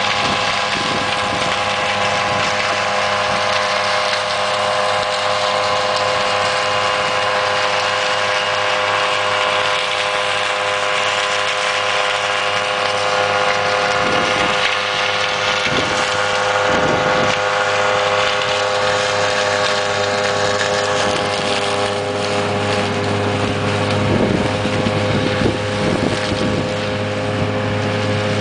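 Pixall seed corn picker harvesting, its engine and picking machinery running steadily with a low hum and a constant whine of several tones. Short crackling knocks come through a few times around the middle and again near the end.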